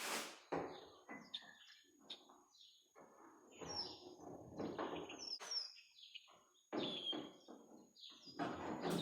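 Small birds chirping in short, falling calls, over irregular light knocks and rustling as parts are handled.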